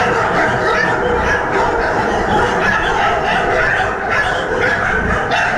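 Many dogs barking and yelping together in a shelter's kennel pens: a loud, continuous chorus with no pauses.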